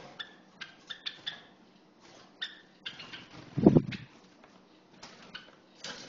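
Java sparrow (rice finch) giving a string of short, sharp chip notes, about a dozen of them, bunched in the first half and again near the end. A dull thump about three and a half seconds in is louder than the calls.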